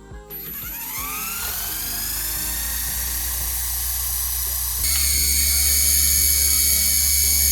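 Wltoys V911S RC helicopter's electric motor and rotor spinning up as the throttle is raised: a whine that rises in pitch and levels off, then steps up higher and louder about five seconds in as more throttle is given.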